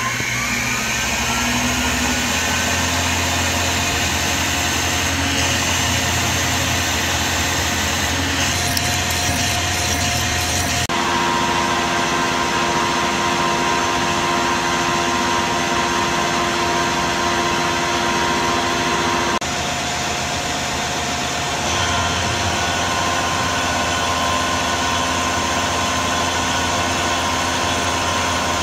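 CNC mill spindle spinning up with a rising whine, then running steadily as an end mill cuts an aluminium block under coolant. The pitch of the whine shifts abruptly a few times as the cut changes.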